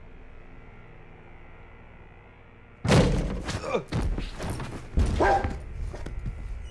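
A dog bursts into loud barking about three seconds in, several barks in quick succession, after a low steady background hum.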